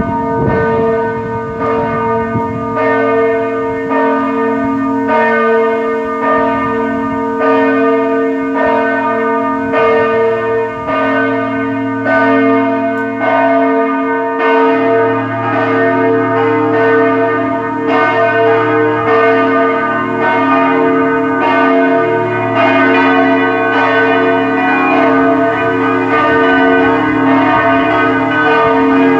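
Swinging church bells from a four-bell Grassmayr peal tuned B♭, E♭, G♭ and A♭, ringing as the call to Mass. The strokes overlap into a continuous clang, and a deeper hum grows stronger about halfway through.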